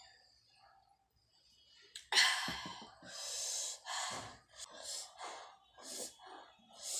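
A person's loud, breathy gasp about two seconds in, after a gulp of cold cola, then a long breathy exhale and a few shorter breaths.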